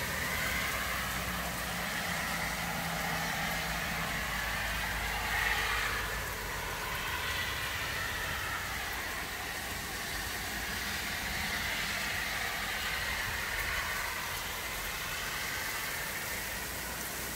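Heavy rain falling steadily: a dense, even hiss. A faint low hum sounds for a few seconds near the start.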